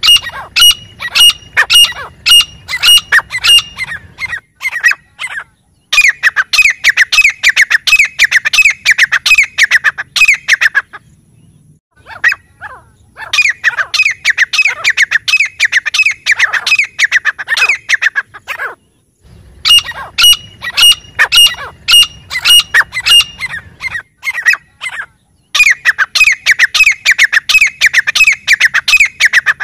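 Grey francolins calling: fast, loud runs of repeated, downward-sliding notes in bouts of about four to six seconds, broken by short pauses.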